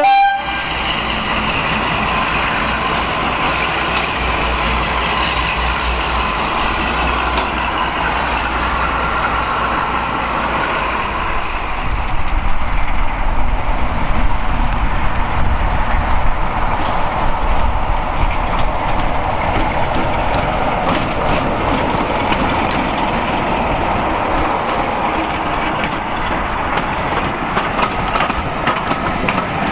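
Diesel locomotives running past with their trains, the engine note steady under the rumble of the rolling stock. A horn blast cuts off right at the start, and in the second half a rake of coaches rolls by close, its wheels clicking over the rail joints in a regular patter.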